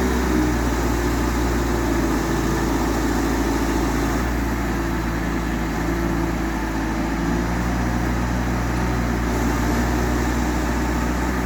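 A motor running steadily: a low, unchanging drone with several held tones.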